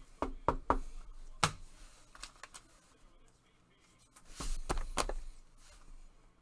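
Trading cards and packs being handled on a tabletop: a few sharp taps and clicks about a second in, then a louder, denser cluster of clicks and rustle around the five-second mark.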